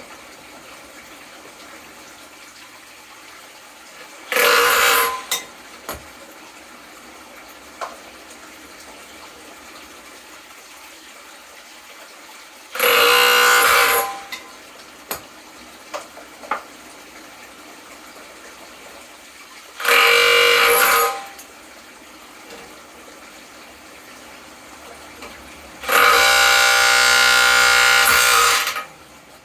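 Impact drill spinning a homemade brake-rotor ore crusher in four short runs, each a loud steady whine lasting one to three seconds, the last one the longest, with a few small knocks in the pauses between.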